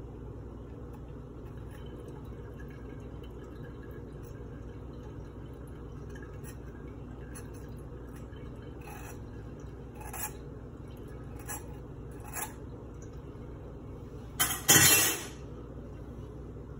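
Metal spatula scraping and tapping in a stainless mesh strainer over a funnel in a glass jug: a few light scrapes and clicks, then a louder clink and clatter near the end. A steady low hum runs underneath.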